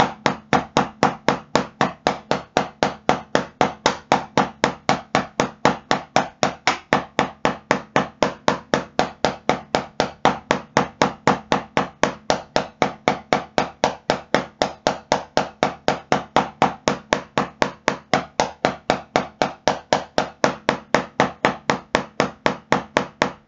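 Wooden drumsticks striking a drum practice pad in an even, unbroken stream of single strokes, about four a second, at a steady volume: a single-stroke technique exercise of hand-to-hand strokes in groups.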